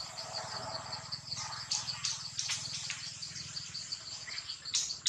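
Insects chirping steadily in a high, rapid pulsing rhythm of about six pulses a second, with a thin steady high whine above it. Several short sharp clicks or snaps break in, the loudest near the end.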